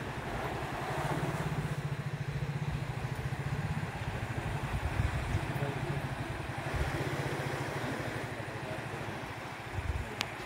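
An engine idling steadily with a low, evenly pulsing hum, over a steady rushing noise; a sharp click near the end.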